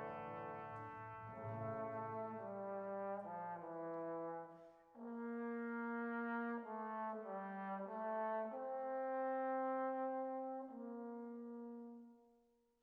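Background music: a slow melody of long held notes that fades out near the end.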